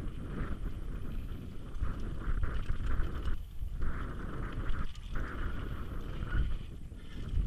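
Mountain bike descending a rocky dirt singletrack: tyres rolling and crunching over loose dirt and stones, the bike rattling, and wind rumbling on the camera's microphone.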